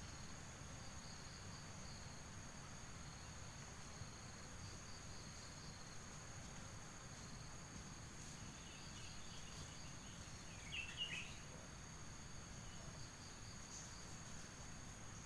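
Insects trilling steadily in the forest: a continuous high buzz over a pulsing lower trill, with a short bird chirp about eleven seconds in.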